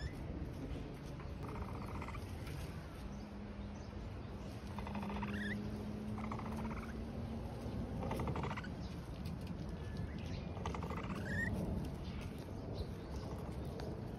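Capybara giving short, rasping calls that rise in pitch, about five of them a couple of seconds apart.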